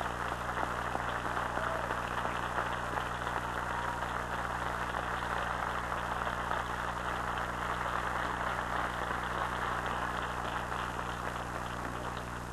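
Audience applauding steadily, easing off near the end, over a steady low electrical hum.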